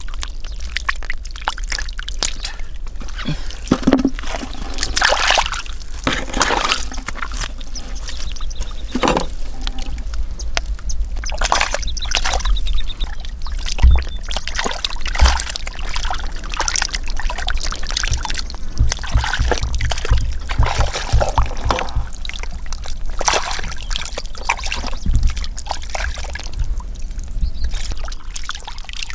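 Hands splashing, scooping and squelching through shallow muddy water and soft mud, in irregular splashes and sloshes while catfish are caught by hand.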